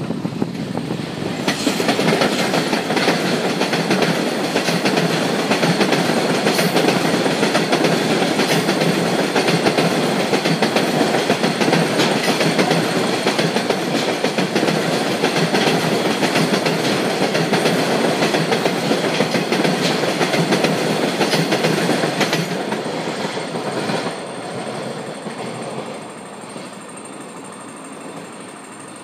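Freight train of tank wagons hauled by a JNR Class EF65 electric locomotive rolling past, its wheels clicking regularly over the rail joints. Loud from about a second and a half in, then easing off and fading as the last wagons move away.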